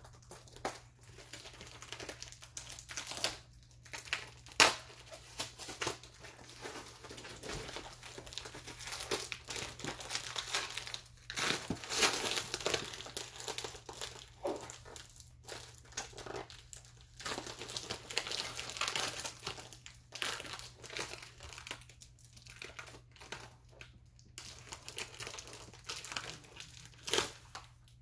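Paper packaging crinkling, rustling and tearing as a package is unwrapped by hand, with irregular sharp snaps and a busier stretch about halfway through.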